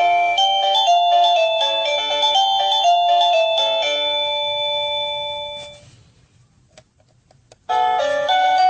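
Sadotech Model C wireless doorbell receiver playing an electronic chime melody of clear beeping notes, which fades out about six seconds in. After a few faint clicks, a different melody starts near the end.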